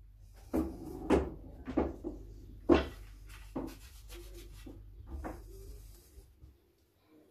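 Irregular knocks and thuds, about six over five seconds, mixed with some rubbing: a player's footsteps and cue handling as he moves round a small pool table between shots.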